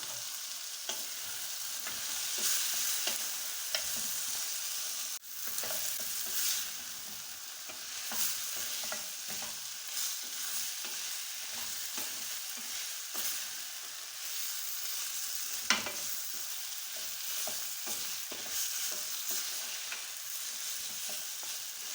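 Goat meat sizzling in hot oil with tomatoes and spices in a cooking pot, a steady hiss, with a spoon scraping and knocking against the pot now and then as it is stirred.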